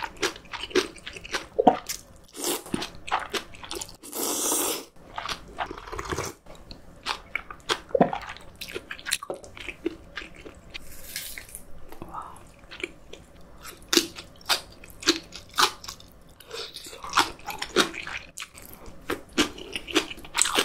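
Close-miked eating: slurping cold soy-milk noodles and crunching spicy fresh napa cabbage kimchi, with many quick wet chewing clicks and a longer noisy slurp about four seconds in.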